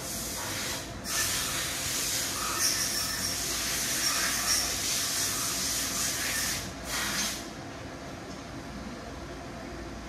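Screwdriver turning the worm-drive screw of a hose clamp on a radiator hose: a continuous high, scratchy rasp that starts about a second in and stops near seven seconds, after one short final burst.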